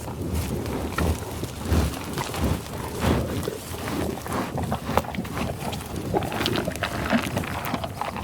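Cattle: a busy mix of short knocks and clicks over low animal sounds, with no clear long moo standing out.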